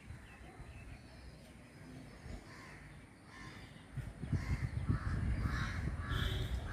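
Crows cawing repeatedly. From about four seconds in, wind rumbles on the microphone.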